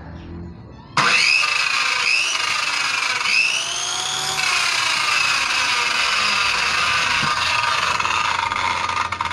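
A 1050-watt Makita-branded clone circular saw (M1Y-185) switches on abruptly about a second in and runs at full speed. Its motor and blade whine slide up and down in pitch a few times in the first seconds, then hold steady.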